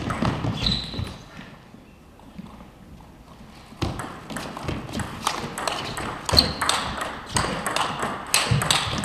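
Table tennis rally: the ball clicks sharply back and forth off the bats and the table, several strikes a second, starting about four seconds in after a few lighter clicks and a quieter pause.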